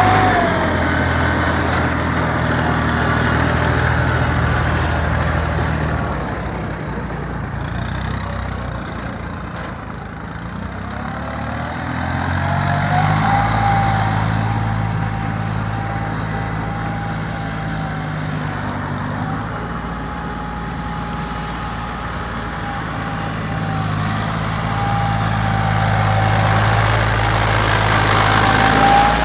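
Yanmar YM2020D compact tractor's diesel engine running: its speed drops about a third of the way through and picks up again. A steady high whine runs alongside it through the second half.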